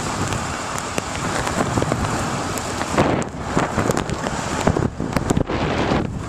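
Wind buffeting a microphone held out of a moving car's window, over the rush of tyres rolling through snow. From about halfway through, the buffeting turns gustier, with sharp crackles.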